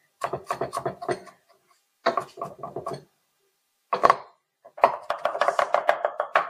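Large kitchen knife chopping through soft eggplant mash on a thick wooden slab, in quick runs of about seven strokes a second with short pauses between. A single heavier stroke falls near the middle, and a longer, denser run begins about five seconds in.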